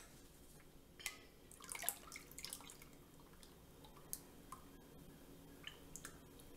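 Lye water poured from a metal pitcher through a mesh strainer into a container of soap oils: faint trickling with scattered drips.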